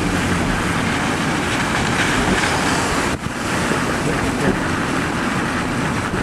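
Strong thunderstorm wind rushing steadily and buffeting the microphone, with one brief dip about three seconds in.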